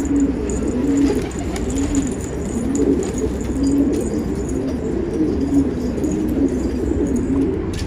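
A flock of domestic pigeons cooing, their low rising-and-falling coos overlapping one after another.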